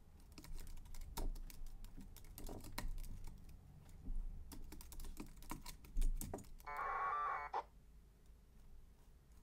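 Computer keyboard typing, a quick run of key clicks, for about six seconds. Then comes a steady buzzing burst a little under a second long: a 1200-baud AFSK packet radio transmission going out.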